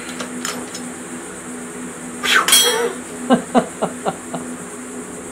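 Steel hand tools clinking as the wrench is taken off the flywheel puller and put down: a short clatter about two and a half seconds in, then about five light metallic clinks.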